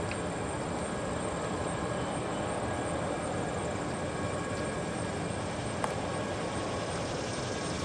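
EMD GP10 diesel locomotive idling with a steady engine drone. A single sharp click comes about three-quarters of the way through.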